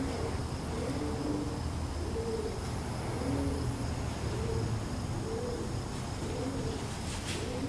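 Pigeons cooing: a run of soft, low coos repeating every half second or so, over a steady low rumble.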